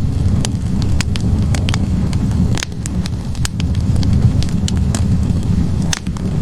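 Wood fire burning in a fireplace: a steady low roar of the flames with many sharp, irregular crackles and pops from the logs.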